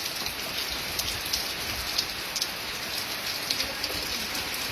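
Heavy rain falling steadily, with scattered sharp ticks of single drops landing close by.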